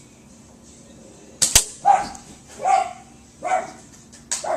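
A dog barking, four barks about 0.8 s apart starting about two seconds in. Two sharp cracks come just before the first bark, and another near the end.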